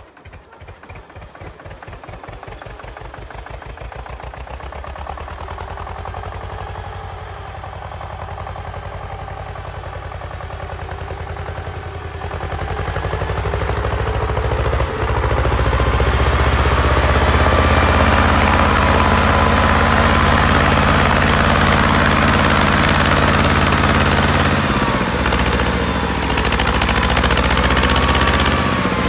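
T-16 self-propelled chassis' two-cylinder air-cooled diesel, started in frost, firing in separate chugs that quicken and build into an even run over the first seconds. It then runs louder under way, with the revs dipping and rising again near the end.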